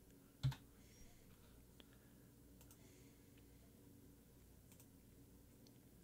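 Near-silent room tone with one sharp click from a computer keyboard about half a second in, followed by a few faint clicks.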